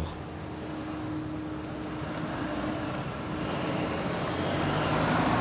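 Tour coach engine running and growing steadily louder as it approaches, over street traffic noise.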